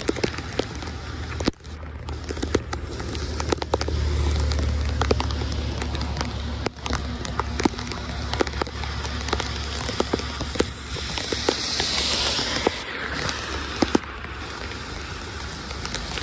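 Heavy rain pelting a flooded street, a dense patter of sharp drop impacts, over water rushing through a gutter storm-drain grate with a steady low rush.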